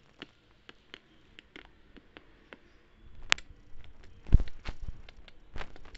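Handling noise from leafing through a paper notebook: scattered faint clicks and taps, then louder page rustles and a few dull thumps from about four seconds in.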